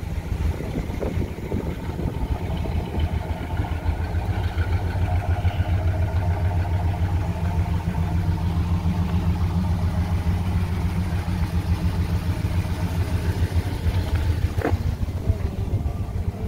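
Pontiac 428 V8 idling steadily, a low, even rumble. A single sharp click comes near the end.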